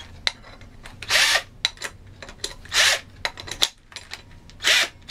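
Cordless drill with a hole saw fitted, run in three short bursts of about half a second each, with light clicks of handling between them.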